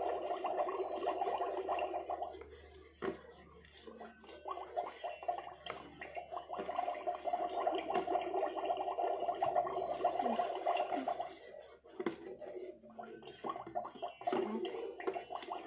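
Magic Mixies toy cauldron bubbling and gurgling while a wand stirs inside it. The bubbling comes in stretches, with a lull around the third and fourth seconds, and a few sharp clicks of the wand against the pot are mixed in.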